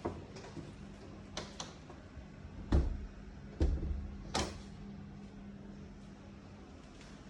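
Several short clicks and knocks in the first half, two of them with a low thump, over a steady low hum.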